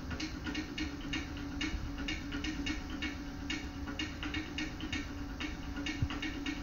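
Dance music with a quick, clicking drum beat of about three strokes a second, heard through a television speaker, with a steady hum underneath.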